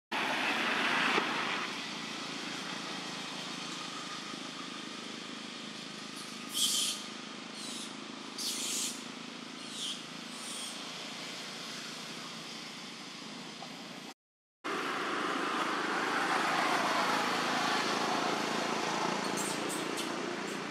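Steady outdoor background noise, with a few short, high, hissy chirps about a third of the way through. The sound cuts out for a moment just past the middle.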